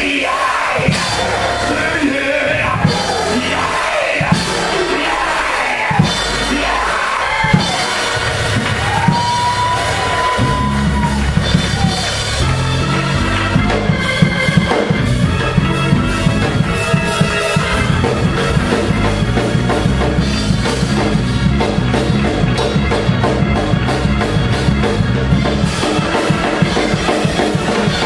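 Live church band music with drums, voices raised over it in the first few seconds. About ten seconds in it picks up into a fast, steady beat with a heavy bass line.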